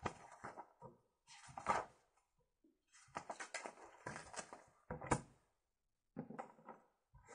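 A sheet of paper rustling and crinkling as it is handled, in several short bursts, the sharpest about five seconds in.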